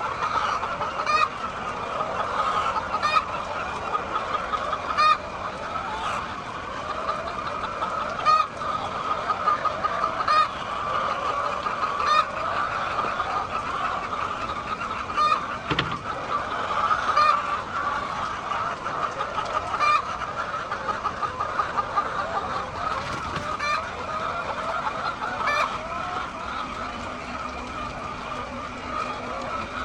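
A large flock of hens clucking continuously, with sharper single calls standing out every second or two.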